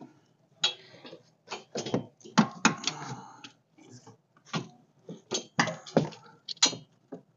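Hand tools and metal parts being handled: about fifteen short, sharp metallic clicks and clinks at an uneven pace.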